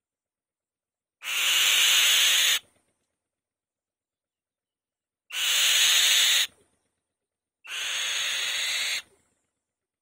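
Female white-tailed kite calling on the nest: three long, harsh rasping screeches, each a little over a second, a few seconds apart, the third quieter than the first two.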